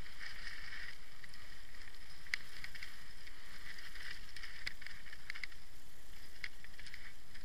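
Mountain bike riding down a dry, rocky dirt singletrack: a steady rolling hiss of tyres on gravel with scattered sharp clicks and rattles as the wheels strike stones, picked up by a camera mounted on the rider.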